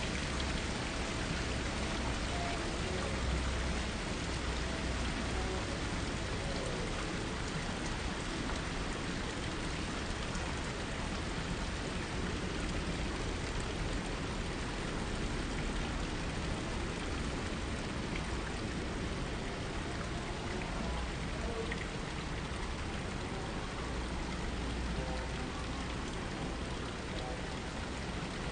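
Water from tiered garden fountains splashing steadily down into their basins.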